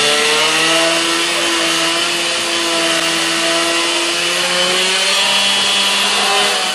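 Modified Sachs 503 two-stroke moped engine with a 65 cc Polini kit, pulling hard on a roller dyno. Its pitch climbs slowly under load, and it cuts back near the end.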